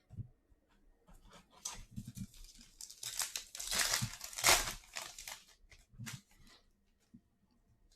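Foil wrapper of a trading-card pack being torn open and crinkled, a crackly rustle that builds to its loudest in the middle and dies away near the end.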